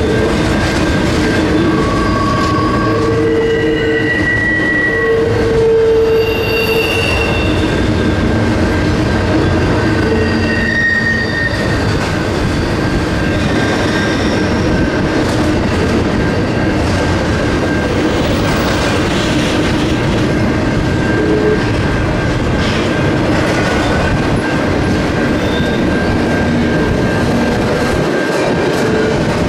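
Double-stack intermodal freight train rolling past at close range: a steady, loud rumble of wheels on rail with clickety-clack over the joints. Short high-pitched wheel-flange squeals at shifting pitches come mostly in the first dozen seconds and grow fewer later.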